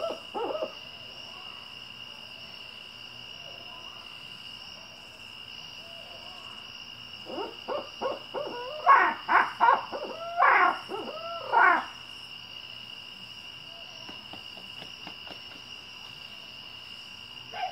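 Owl hooting: a couple of short hoots at the start, then about seven seconds in a fast, loud run of rising-and-falling hoots and cackles lasting about four seconds. Insects trill steadily underneath.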